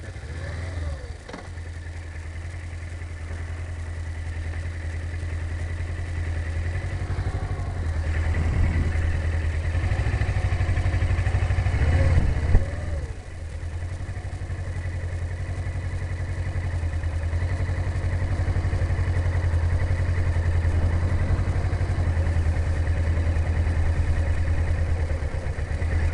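Motorcycle engine running steadily at low speed, heard from inside the rider's helmet, slowly getting louder, with a brief knock about twelve seconds in.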